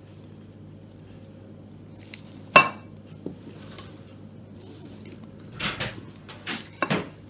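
Cupcake tins and kitchen utensils clinking and knocking on a counter: one sharp ringing clink about two and a half seconds in, soft rustling, then a few lighter knocks near the end.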